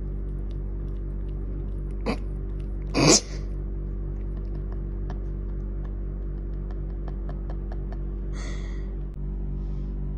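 Ambient background music with a low, steady pulsing drone. About two and three seconds in come two short, sharp noises, the second one the loudest sound, and a softer rushing noise follows a little past eight seconds.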